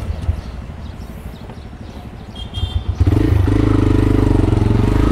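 TVS Raider single-cylinder motorcycle engine idling with a low, even pulse, then about three seconds in rising suddenly to a louder, steady running note that holds.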